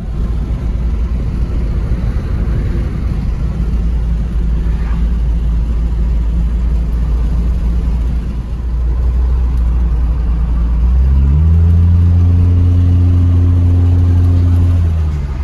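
Car interior noise while driving: a heavy low rumble of engine and road noise. About 11 seconds in, the engine note rises and then holds a steady drone for about four seconds, stopping just before the end.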